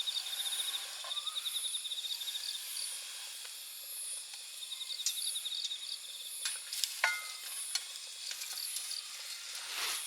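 Food sizzling in a frying pan over a campfire, a steady hiss, with insects trilling in repeated bursts. A light clink sounds about seven seconds in.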